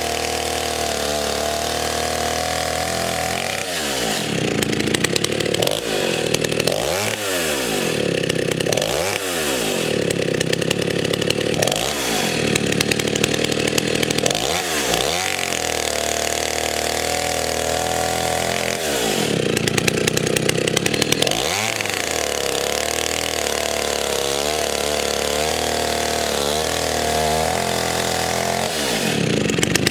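Vintage STIHL 08S two-stroke chainsaw running at high revs while cutting firewood. Its engine speed drops and climbs back about ten times as the chain works through the wood.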